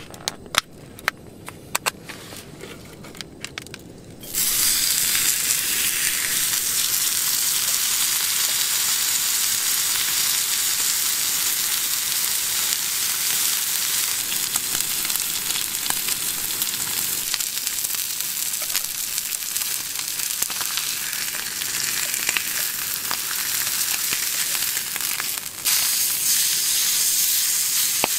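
A few sharp crackles, then about four seconds in a thick ribeye steak hits the hot iron griddle and sizzles loudly and steadily as it sears. Near the end the sizzle drops for a moment and comes back, as the steak is turned.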